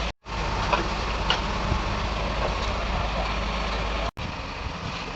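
Heavy diesel engine of a Tata Hitachi excavator running steadily with a low hum and clanks. The sound cuts out abruptly twice, just after the start and about four seconds in.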